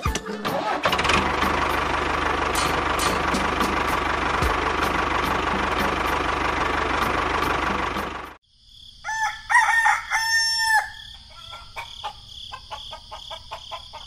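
An engine runs steadily for about eight seconds and cuts off suddenly. Then a rooster crows once, followed by short clucks from chickens.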